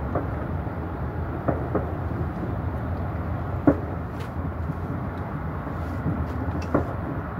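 A steady low rumble with several short light knocks or clicks scattered through it, the sharpest about halfway.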